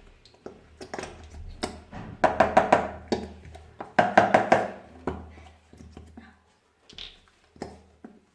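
Liquid poured from a bottle into a bowl, glugging in two bursts with rapid clicking pulses, amid smaller taps and clicks of containers being handled.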